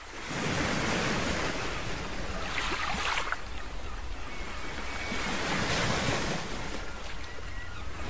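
A rushing, surf-like noise that swells and fades twice, with a steady low hum beneath it.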